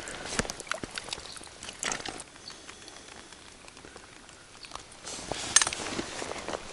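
Close-up handling noise: scattered small clicks and rustles, as from hands working with fishing tackle and bait, with a louder rustle about five seconds in.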